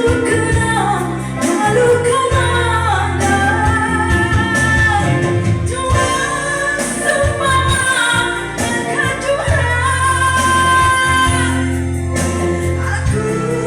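A woman singing a song over a band accompaniment, with a steady bass line and a regular drum beat.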